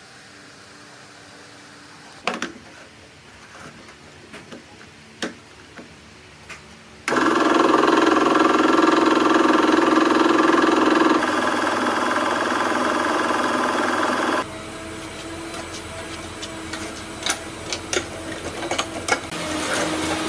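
Restored belt-driven electric air compressor running loud and steady for about seven seconds, starting suddenly after a few knocks and clicks. Before and after it there is a quieter steady hum with scattered clicks.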